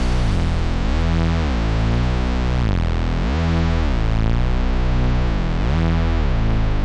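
Background electronic music: a synthesizer line whose pitch sweeps up and back down in a repeating pattern about every second and a quarter, over a steady bass.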